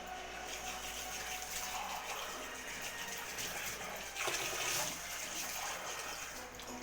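Water running steadily, a constant rushing noise.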